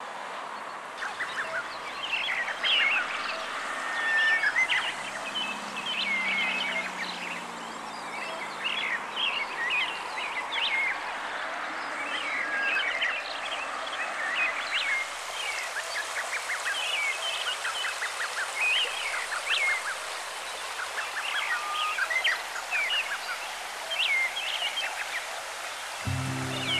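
Small birds chirping and twittering, many short overlapping calls over a faint outdoor hiss. A faint low hum slides down in pitch between about five and ten seconds in.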